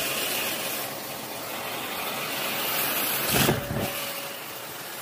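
Hand-held hot-air blower running steadily with a rushing hiss as it blows straight at a plate. About three and a half seconds in comes a louder, deeper rush of air.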